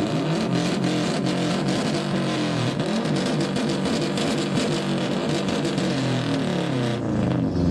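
Several turbocharged Subaru WRX flat-four engines revved together through modified exhausts, their pitches rising and falling over and over and crossing one another, with a crackle of short pops throughout.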